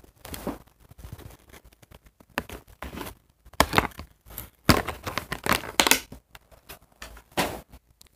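Doll packaging being handled: irregular crinkling, rustling and tearing of the box's cardboard and plastic as the doll is freed from its ties and taken out, in uneven bursts.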